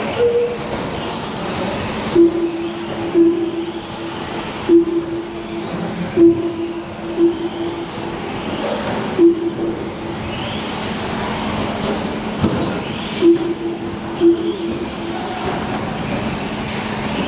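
Electric 4WD short course RC trucks racing, their motors whining and rising in pitch as they accelerate. Over them come short, same-pitched beeps at uneven intervals from the track's lap-timing system as trucks cross the line; the beeps are the loudest sounds.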